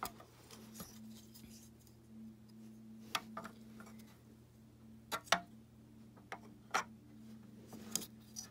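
Hard plastic clicks and knocks from handling and fitting parts of an upright vacuum's plastic base: several sharp taps a second or two apart, the loudest about five seconds in, over a steady low hum.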